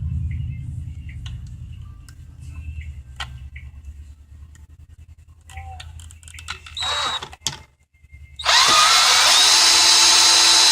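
Power drill with a small driver bit spinning on a screw: a short spin, then a second later a long steady whine as it keeps running. Faint clicks and handling sounds come before it.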